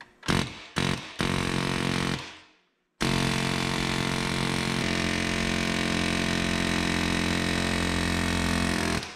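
Pneumatic air chisel with a sheet-metal cutting bit hammering through the spring-steel sleeve of a suspension control-arm bushing. It gives a few short bursts, runs for about a second and dies away, then runs steadily for about six seconds before stopping near the end.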